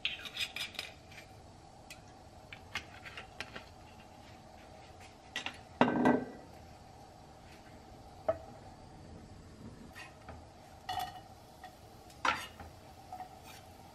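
Kitchen handling sounds around a cold non-stick frying pan: scattered clicks and knocks of a glass oil bottle and utensils as olive oil is poured in and sliced garlic added. One louder knock with a short ring comes about six seconds in.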